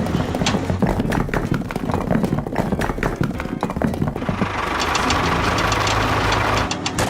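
A small motor running, with rapid clicking for the first few seconds, then a steadier hiss over a low hum from about four seconds in, dropping out briefly near the end.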